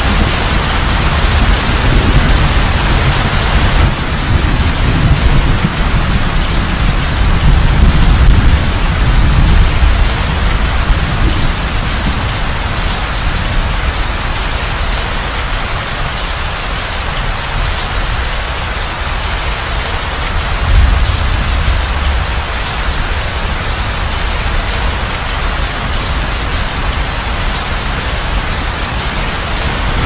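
Steady heavy rain with low rolling thunder. The thunder rumbles through roughly the first ten seconds and swells again briefly about twenty seconds in.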